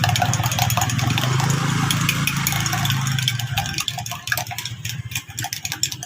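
A small engine running steadily, then dying away about three and a half seconds in, with light sharp clicks and clinks over it.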